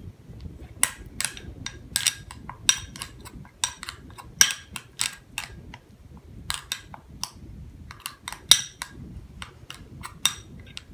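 A small spoon stirring mashed banana and ground flaxseed in a ceramic bowl, clinking and tapping against the bowl in quick, irregular strokes, several a second.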